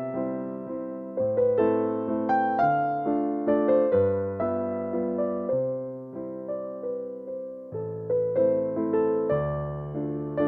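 Background music: a gentle electric piano playing sustained chords with a melody on top, the chords changing about every second and a half.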